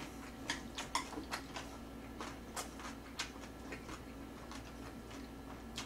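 Faint, irregular clicks and smacks of someone eating: chewing, and chopsticks picking up jjajang noodles from a plate.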